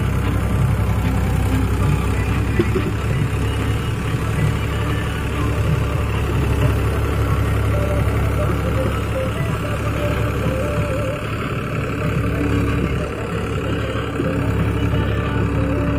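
Powertrac 439 tractor's three-cylinder diesel engine running steadily under load as it pulls a trolley heaped with clay.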